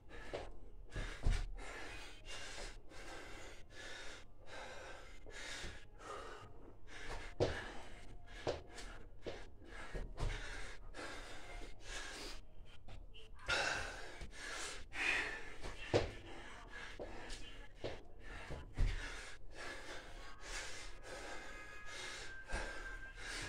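A man gasping and breathing hard from the exertion of repeated Navy SEAL burpees, with a dull thud every few seconds as he lands on a carpeted floor.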